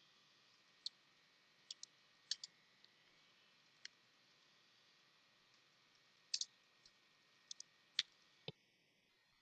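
Slow, irregular typing on a computer keyboard: about a dozen faint key clicks, some single and some in quick pairs, against near silence.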